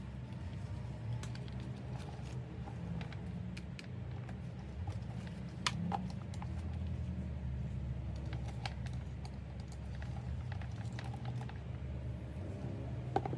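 Scattered light clicks and taps from handling a bag, over a steady low hum. A sharper click comes about six seconds in and another near the end.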